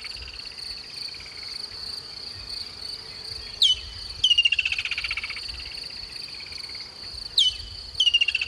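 Woodland kingfisher calling twice: a sharp high note followed by a long, rapid trill that falls in pitch, the first about three and a half seconds in and the second near the end. A steady high insect drone runs underneath.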